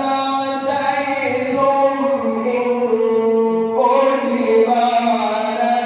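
A man's voice reciting the Quran in melodic tajweed style, drawing out long, ornamented held notes, moving into a new phrase about four seconds in.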